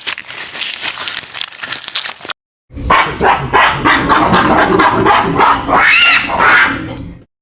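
Faint crunching for about two seconds, then a short gap, then a dog barking loudly for about four and a half seconds.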